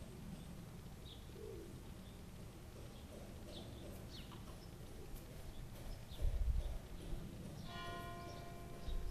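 Quiet ambience with faint, scattered bird chirps. A low rumble comes about six seconds in, and near the end a brief ringing tone with several overtones.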